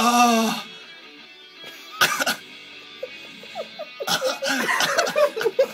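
A young man's pained groan during a navel piercing, a sharp breath about two seconds in, then a rapid string of short strained vocal pulses near the end, with music playing faintly underneath.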